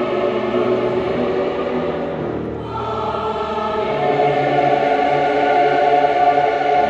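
Choir singing in held, sustained chords, with a short breath about two and a half seconds in before the next phrase swells louder.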